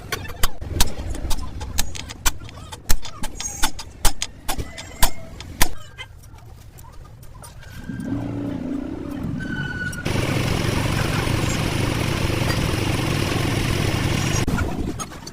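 Hammer blows on metal, about a dozen irregular strikes in the first six seconds, typical of work on a truck axle's kingpin and knuckle. Then a steady mechanical running noise starts, gets suddenly louder about ten seconds in and cuts off shortly before the end.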